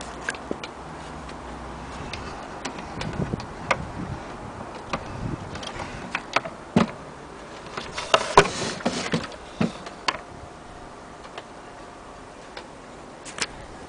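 Irregular clicks and light knocks, as of a small object being handled, coming thickest about seven seconds in.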